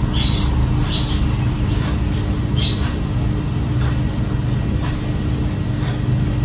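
A steady low hum, with several short high chirps from a parrot scattered through it.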